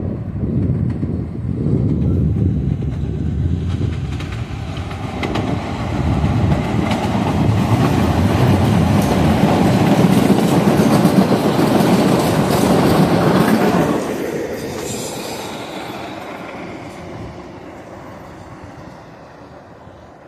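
An MBTA Blue Line 0700-series electric subway train passing beneath a footbridge, its wheels clicking over the rails. The sound builds over several seconds and is loudest for about six seconds. It then drops off with a brief high squeal and fades away as the train recedes.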